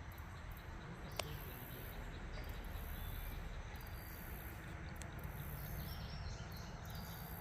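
High-pitched insect chorus buzzing in pulses that swell and stop about every second, over a low rumble of wind or handling noise. A single sharp click about a second in, and a few faint bird chirps near the end.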